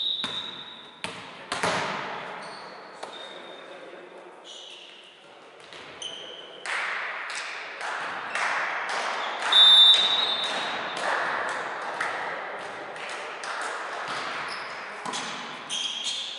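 Volleyball match in a sports hall: a ball thudding and bouncing on the wooden floor, with echoing knocks and players' shouts. There are short high-pitched tones at the start and about ten seconds in, the loudest sounds here.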